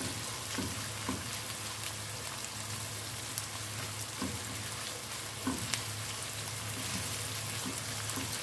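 Chopped red onion and whole spices sizzling in hot oil in a granite-coated pan, with a silicone spatula stirring through them and scraping the pan now and then. The onions are being fried until they turn brown.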